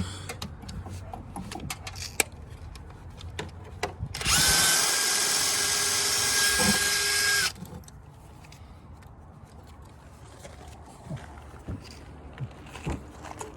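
Power drill-driver spinning steadily for about three seconds as it backs out a screw, with scattered clicks and light knocks of tools and parts being handled before and after.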